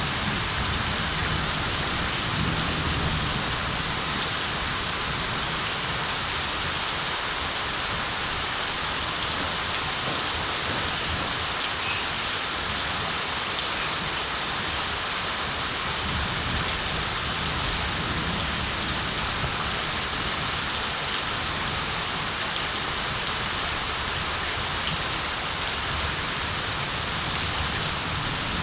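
Steady countryside rain pattering down, with distant thunder rumbling low at the start, again around the middle and near the end.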